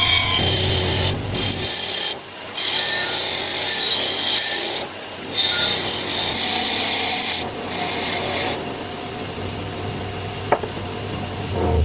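Bench grinder's wire wheel spinning while small metal parts are held against it in spells, brushing them clean: a harsh scratching hiss that starts and stops as each part touches and leaves the wheel, over the grinder motor's low hum. A single sharp click about ten and a half seconds in.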